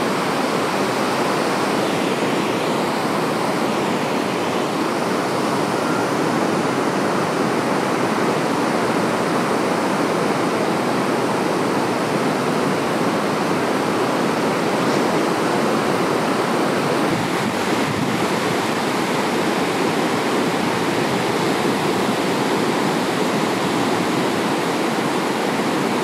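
Sea waves breaking on a beach: a steady rushing of surf.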